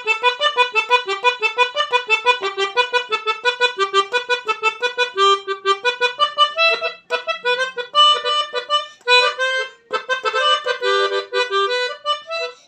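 A small seven-note Basuri pianika (melodica) being played with its reedy tone. It starts with quick repeated notes, about five a second, then moves to slower phrases with held notes and a few chords, with brief breaks near the middle.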